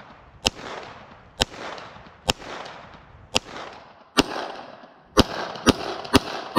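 Glock 34 9mm pistol firing eight shots, the first five spaced about a second apart, then three quicker shots about half a second apart near the end, each trailing off in an echo.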